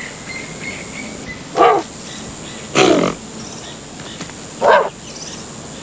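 Early hominins giving three short, loud bark-like calls about a second apart, over a steady high hiss.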